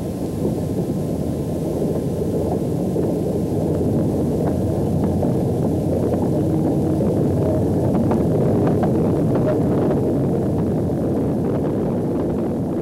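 Low rumble of a 1951 GE 75-ton Co-Co diesel-electric locomotive approaching, growing louder to a peak a little past the middle and easing slightly near the end, with faint clicks mixed in.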